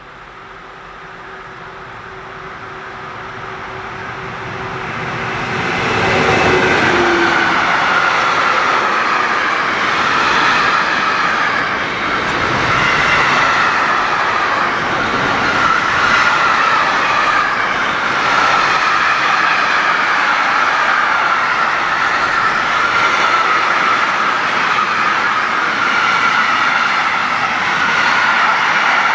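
Container freight train hauled by an electric locomotive, approaching and then passing close by. It grows louder over the first six seconds, with a steady low hum from the locomotive that ends as it passes about seven seconds in. After that the container wagons roll by with a continuous, wavering high wheel squeal, typical of wheels running through a curve.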